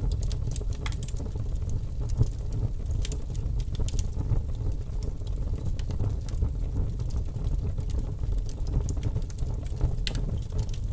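Wood fire burning, a steady low rumble of flames with scattered sharp pops and crackles.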